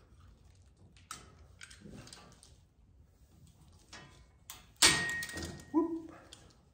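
A few light clicks of a zip tie being cut, then, about five seconds in, a loud metal clank with a brief ring as the metal grill guard insert is swung forward against its frame.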